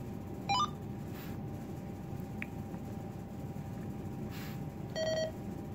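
Uniden BCD436HP handheld scanner powering on: a quick rising run of electronic beep tones about half a second in, then a single electronic beep about five seconds in as it finishes starting up, over a faint steady background hiss.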